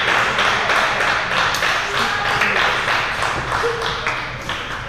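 Busy table tennis hall: many ping-pong balls tapping on tables and bats, mixed with voices, dying down near the end.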